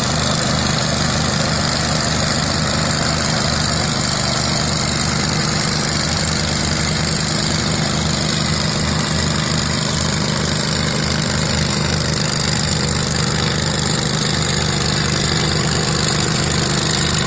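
A John Deere 755 compact diesel tractor and the engine of the pull-behind mower it tows, running steadily together while the mower cuts tall grass.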